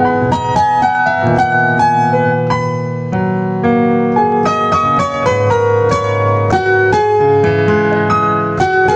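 Solo piano in the Yamaha CFX concert-grand sound, playing a melody over sustained chords, with new notes struck several times a second.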